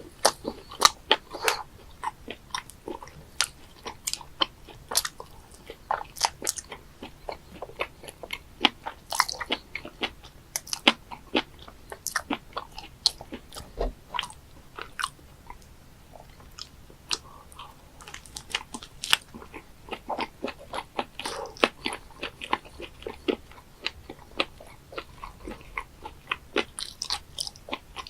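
Close-up eating sounds of live octopus (sannakji): chewing, with many sharp, wet clicks and smacks coming irregularly several times a second.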